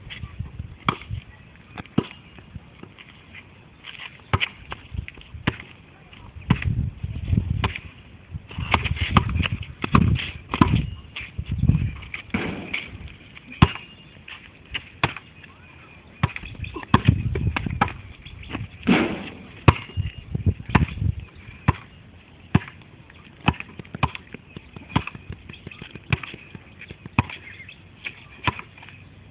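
Basketball being bounced on hard ground: a long string of sharp, irregularly spaced bounces, with bursts of low rumble between some of them.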